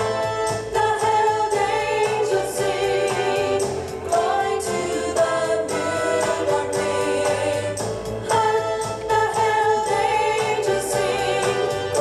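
Recorded 1960s Christmas song: a choir singing over a backing band with a steady beat.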